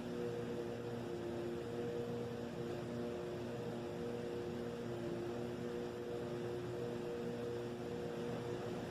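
A steady, droning hum of several held low tones that waver slightly in pitch, over a constant hiss. It is an unexplained hum of the kind reported as a 'strange sound' coming from the sky.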